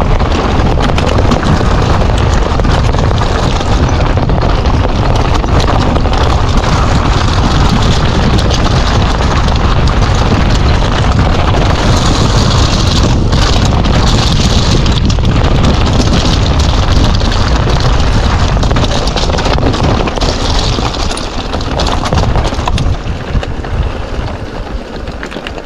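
Wind buffeting the microphone of a mountain biker riding fast downhill: a loud, steady rushing noise with a heavy low rumble, easing off slightly near the end.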